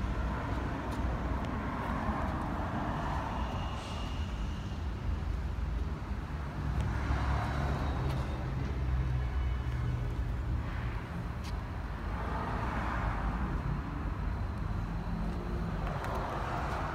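Cummins 4BT 3.9-litre four-cylinder turbo diesel running steadily at idle.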